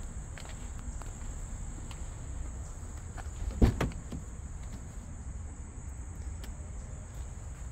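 Steady high-pitched insect chirring, crickets, over a low outdoor rumble. About halfway through comes one loud thump followed by a couple of smaller knocks.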